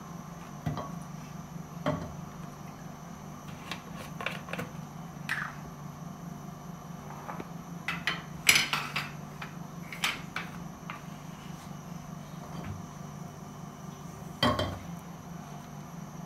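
Large plastic cooking-oil bottle being handled and its screw cap taken off: scattered plastic clicks, crackles and knocks, loudest about eight and a half seconds in and again near fourteen and a half seconds, over a steady low hum.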